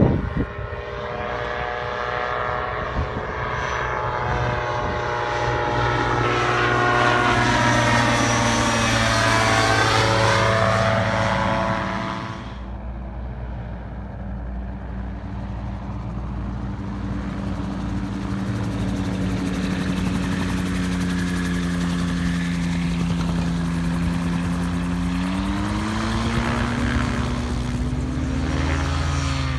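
Dominator gyroplane's engine and pusher propeller in a low pass, loudest about eight to eleven seconds in, the pitch sliding down as it goes by. At about twelve seconds the sound drops to a lower, steady engine note, throttled back as the gyroplane comes down onto the runway, and the pitch rises again near the end.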